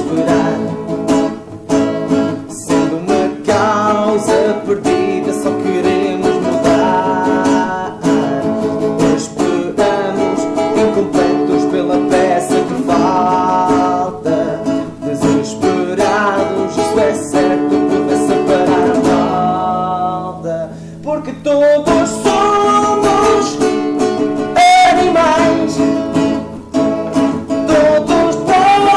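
A song of strummed acoustic guitars with a voice singing.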